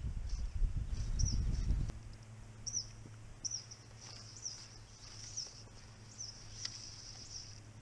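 Wind rumbling on the microphone for about two seconds, then dropping away. After that, small birds give short, high chirps over and over, with a faint steady low hum beneath.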